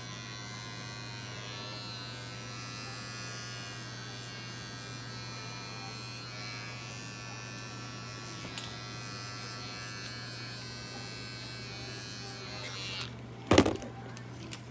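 Cordless electric hair clipper running with a steady hum, shaving a dog's belly fur for surgery. A single loud knock sounds about a second before the end.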